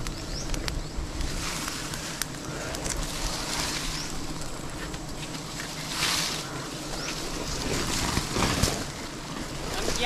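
Rumbling wind noise on the microphone with rustling and scraping of leaves, twigs and bark as a person climbs down a tree trunk. The rustling is louder about six seconds in and again about eight and a half seconds in.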